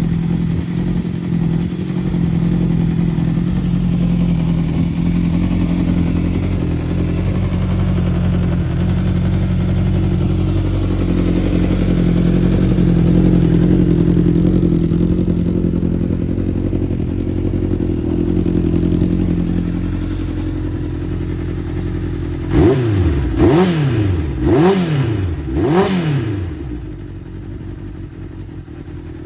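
1981 Honda CB750's inline-four engine idling steadily, then revved four times in quick succession near the end, each blip rising and falling before it drops back to idle. The seller lists it as running without abnormal noises.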